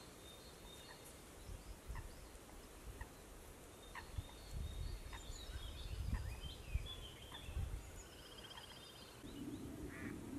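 Wild birds giving short calls and a fast trill near the end, over low gusty rumbling of wind on the microphone.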